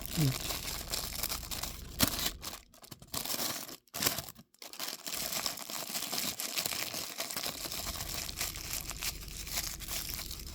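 Packaging crinkling and tearing as a knife box is unwrapped and opened, with a few sharper loud rustles in the first few seconds.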